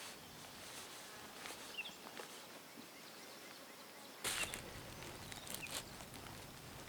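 Forest ambience: a steady outdoor background hiss with a few short, high bird chirps and occasional soft rustles or crunches. It turns louder and fuller about four seconds in.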